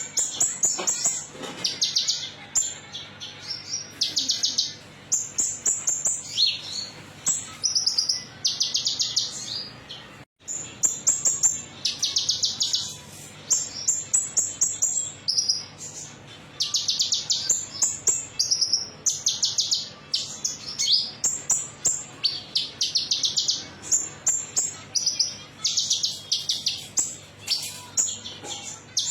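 Konin metalik songbird singing: fast, high-pitched trilled phrases, each under a second, repeated almost without a break. The song drops out briefly about ten seconds in, and a faint steady low hum runs underneath.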